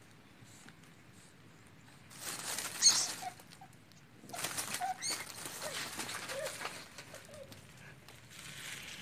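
Rustling and scuffling in dry leaves and twigs as a cat tussles with a rat it has caught, in two bursts, about two seconds in and again from about four seconds in, with a short sharp sound near three seconds.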